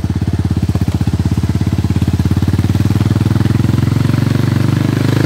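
Motorcycle engine running steadily under way, close up, with an even rapid firing pulse.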